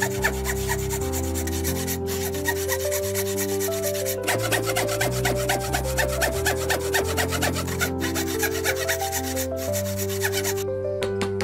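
Thin-bladed hand saw cutting through a wooden post, rasping back and forth stroke after stroke, over background music with held notes.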